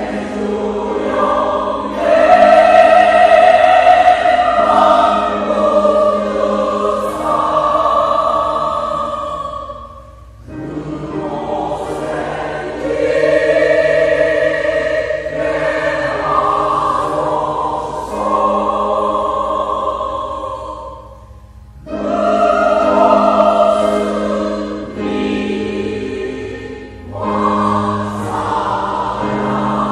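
Mixed church choir singing a sacred anthem in sustained chords, in long phrases with short breaks about 10, 21 and 27 seconds in.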